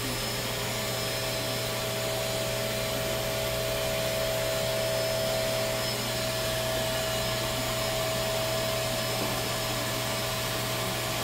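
Electric hair clippers running steadily during a haircut, a low even buzz with a thin steady whine over it.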